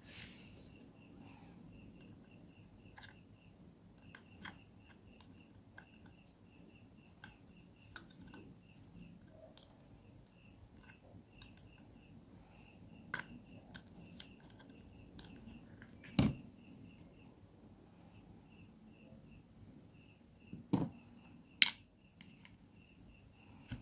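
Small scattered clicks and taps of hand tools and parts while a Samsung Galaxy A03s phone is taken apart, with a few sharper, louder clicks in the second half. A faint high chirp repeats a few times a second in the background.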